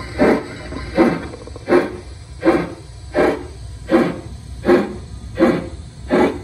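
LGB G-scale model steam locomotive chuffing as it runs slowly: nine evenly spaced chuffs, a little under a second apart.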